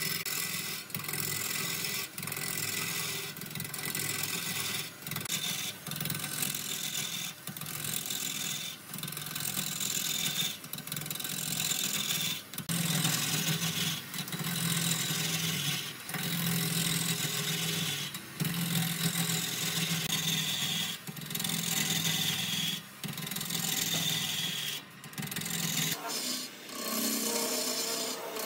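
A turning gouge cutting into a large charred log spinning on a wood lathe: a continuous scraping hiss of wood being shaved away, broken by short gaps every second or two as the tool is lifted and set again. A low hum from the lathe runs underneath.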